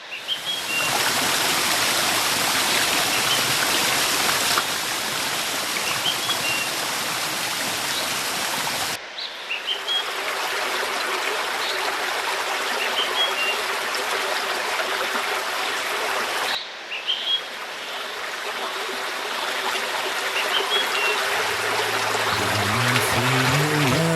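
Steady rush of waterfall water over a river, with a small bird giving short rising chirps now and then above it. The water sound changes abruptly twice where clips are joined, and low music notes come in near the end.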